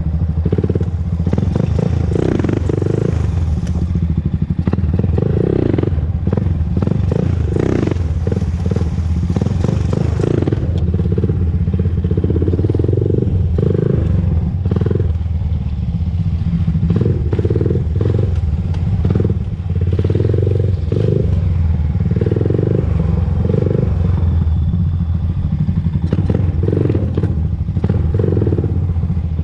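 2001 Honda TRX400EX ATV's single-cylinder four-stroke engine running continuously while being ridden, with repeated short surges in its sound.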